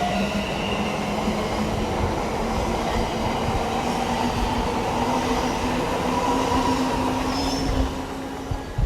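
Electric train pulling away, its traction motors whining and rising steadily in pitch over the running noise of wheels on track. The sound eases off near the end.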